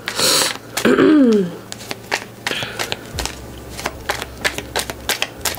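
A deck of tarot cards being shuffled by hand, the cards clicking and slapping against each other in quick, irregular strokes. A breath and a short falling vocal sound come in the first second and a half.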